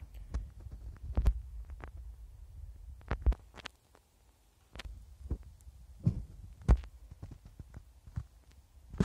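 Footsteps of a person walking over leaf litter, twigs and moss on a forest floor: irregular dull thuds with light crackles of dry leaves and snapping twigs, pausing briefly about four seconds in.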